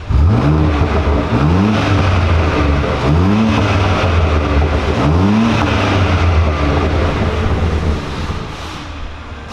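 Performance car engine and exhaust revved four times, each rev rising in pitch and falling back, then settling to a steadier run that fades slightly near the end.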